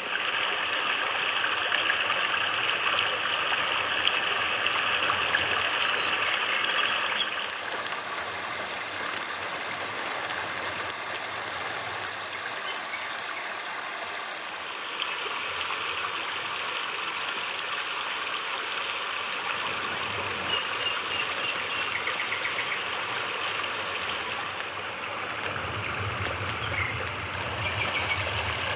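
Steady rushing of water flowing in a stream. Its character changes abruptly about seven seconds in and again about halfway through.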